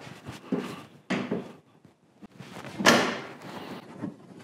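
BMW F33 4 Series hood being lowered and pushed shut, with a few knocks and one louder thud just before three seconds in as it closes.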